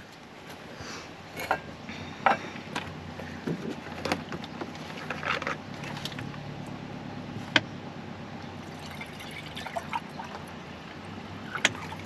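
Steady rain on the roof of a VW T5 camper van, heard from inside, with scattered clicks and knocks of things being handled; the sharpest knock comes about halfway through.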